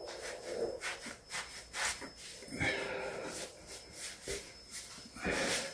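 Soft rubbing and scraping with scattered light taps and clicks, from hand work at a freshly caulked countertop-backsplash joint, with a louder rub near the end.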